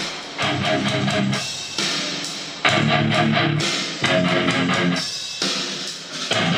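Music with strummed guitar chords, each ringing out before the next, played through a pair of vintage Philips 425 three-way bass-reflex loudspeakers as a working test.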